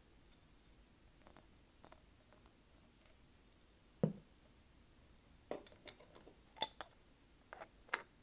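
Seashells and small beach ornaments being handled and set down, giving scattered light clicks and taps, with a single duller knock about four seconds in and a quick run of sharper clicks near the end.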